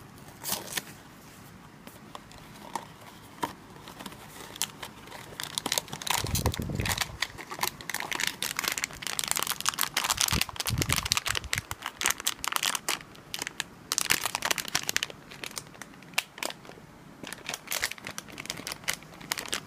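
Cardboard blind box handled and opened, with a few scattered clicks at first, then from about six seconds in steady crinkling and tearing as the figure's foil wrapper is torn open, with a couple of low thuds from handling.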